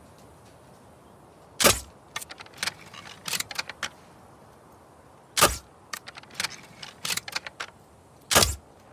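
Crossbow shots: three loud, sharp releases about three to four seconds apart, each followed by a run of lighter mechanical clicks and rattles.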